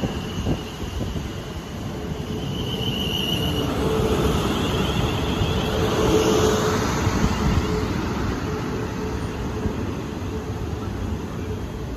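Train moving along the track: a steady rumble of wheels on rails with a steady humming tone, a faint high squeal in the first few seconds, and growing louder about halfway through.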